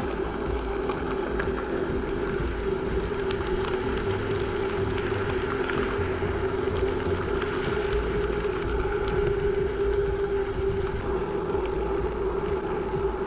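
Bicycle tyres rolling over a gravel road, with wind on the microphone and small stones ticking against the bike. Near the end the high hiss drops off as the tyres reach a smoother surface.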